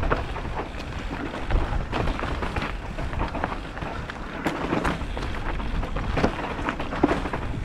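Mountain bike riding down a dry dirt trail: tyres crunching over dirt, roots and stones, with frequent short knocks and rattles from the bike on the bumps, over a steady low rumble of wind on the microphone.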